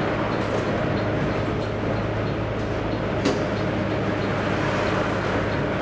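Volvo B9TL double-decker bus's six-cylinder diesel engine running steadily while the bus cruises, heard from inside the cabin as a steady low hum with road noise. A single sharp click comes about three seconds in.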